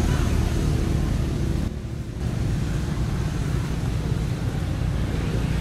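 Steady low rumble of outdoor background noise, with a brief drop in level a little under two seconds in.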